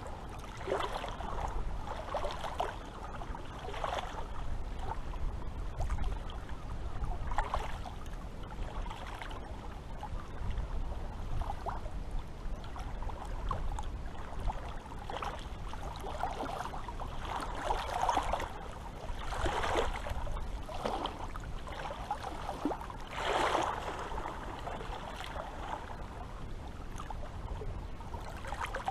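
Seawater lapping and splashing in small irregular surges a second or several apart, with a steady low rumble underneath.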